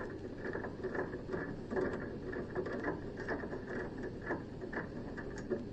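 Screwdriver tightening a screw into a machine's housing, a run of small irregular clicks and scrapes.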